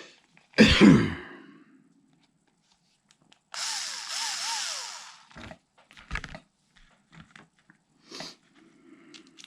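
A small cordless power screwdriver runs for about a second and a half near the middle, driving screws into the RC truck's chassis. A short loud burst comes just after the start, and light clicks of small parts and tools being handled follow.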